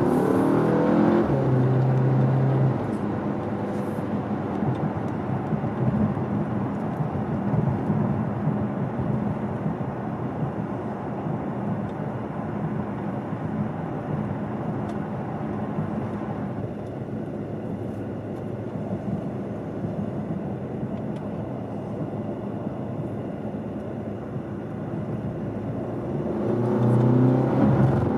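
Skoda Superb's 2.0 TSI four-cylinder engine heard from inside the cabin: its pitch rises as the car accelerates at the start, then the car cruises with a steady rush of tyre and road noise. Near the end the engine pitch rises again under acceleration.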